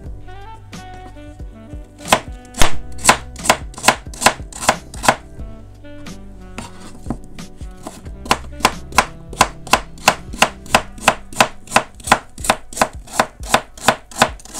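Knife chopping food on a cutting board in two runs of steady strokes, about three a second, with a pause of a few seconds between them. Background music plays underneath.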